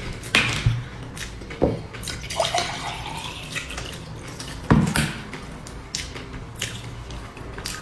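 Close-up wet chewing and lip-smacking of someone eating sticky purple rice, with a few sharp clicks and taps, the loudest just under five seconds in.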